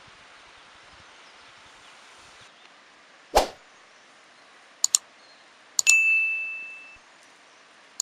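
Subscribe-and-like animation sound effects: a whoosh about three and a half seconds in, a pair of mouse clicks, then another click and a bell-like ding that rings for about a second and fades, with more clicks at the end. Under them, a faint steady outdoor hiss.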